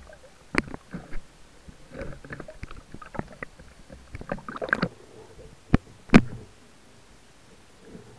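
Sea water splashing and sloshing at the surface, with a series of irregular sharp knocks and clicks as a freshly speared sea bass is handled against the speargun; the two loudest knocks come a little over halfway through, then only quieter water.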